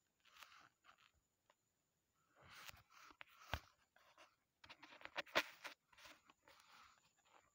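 Near silence, broken by faint scattered clicks and short rustling noises.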